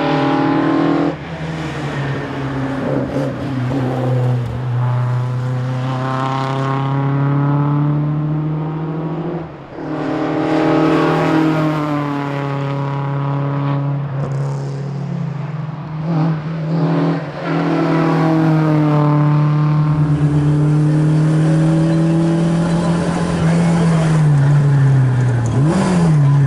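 Fiat 131 rally car's engine driven hard, revving up through the gears and backing off for corners, so its pitch climbs and falls again and again, with a brief lift about nine and a half seconds in.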